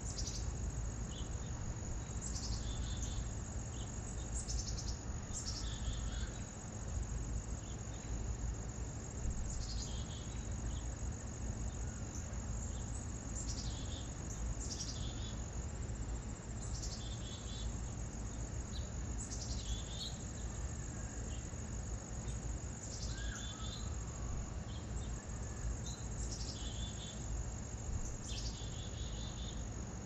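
Crickets trilling in a steady, unbroken high tone, with small songbirds giving short high call notes every second or two over a steady low rumble.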